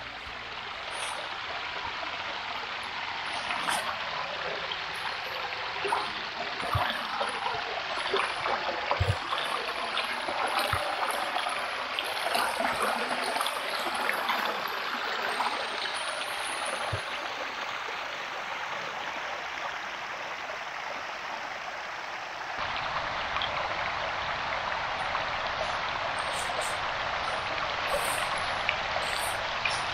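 Small forest brook running and trickling over rocks in low cascades. About three quarters of the way through the sound changes suddenly to a fuller, more even rush of water.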